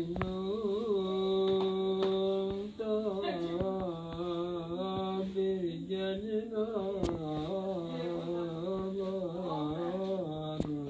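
A man singing unaccompanied, holding long drawn-out notes with wavering, ornamented turns in a low male voice.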